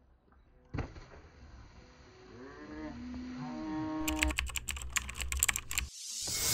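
Video-editing sound effects for a VHS-style glitch transition: a sudden crackle about a second in, warbling tones that bend up and down, a rapid clatter of static clicks, then a whoosh building near the end.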